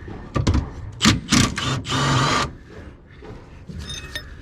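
Clicks and clanks of tools working on a car's rear suspension bolt, with a short, dense rattling burst about two seconds in and a brief metallic ring near the end.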